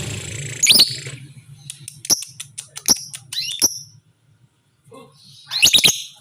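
Lovebird giving short, shrill chirps in scattered bursts with pauses between, the loudest quick cluster near the end: a broken, stuttering 'ngekek' chatter rather than one long continuous trill.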